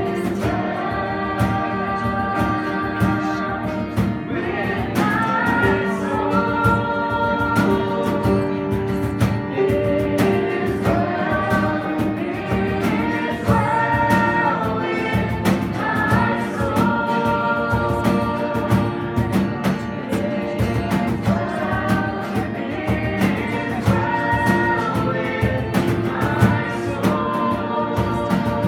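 Live worship music: singing over a strummed guitar with a steady beat.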